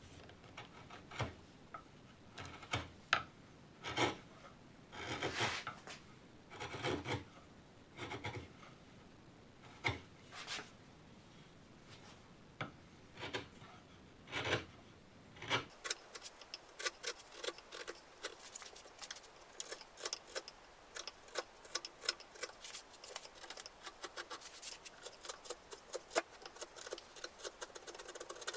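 Hand tool scraping across a wooden gun stock: irregular rasp-like strokes of about half a second each. About halfway through, after a cut, it changes to a dense run of quick, fine scratches.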